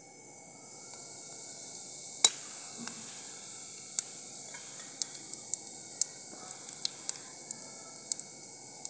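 Cumin seeds sizzling in hot oil in a kadhai: a steady hiss that builds over the first second, with sharp clicks scattered through it. The loudest click comes a little over two seconds in.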